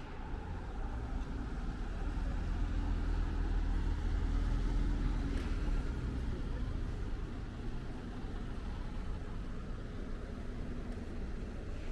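Street traffic: a motor vehicle passes close by, its low engine rumble swelling to a peak about four to five seconds in and then fading back into the general traffic noise.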